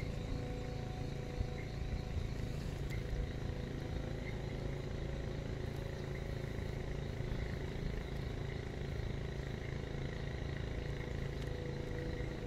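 A steady low rumble, like a motor vehicle's engine running at a distance, with faint steady higher tones over it.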